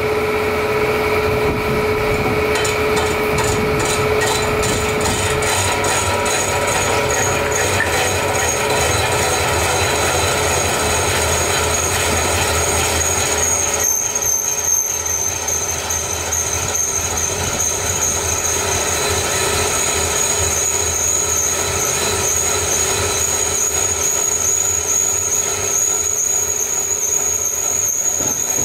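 Metal lathe turning a steel truck wheel rim, the cutting tool machining its edge: a steady machine sound, with a thin, high whine from the cut setting in about halfway through and holding.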